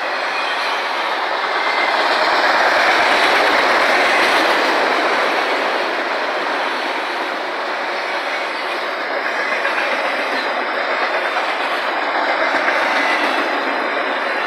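Autorack freight cars rolling past close by: a steady rumble of steel wheels on the rails, with a rhythmic clickety-clack as the trucks pass over rail joints.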